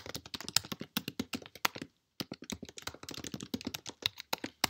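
Typing on a computer keyboard: quick runs of key clicks, with a brief pause about two seconds in.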